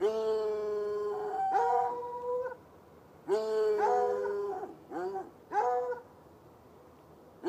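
Hounds baying at night: several long, drawn-out howling bays, then two short ones around five to six seconds in.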